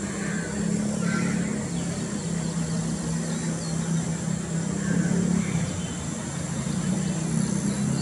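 Steady low hum of a running motor vehicle engine, with a few faint high bird chirps over it.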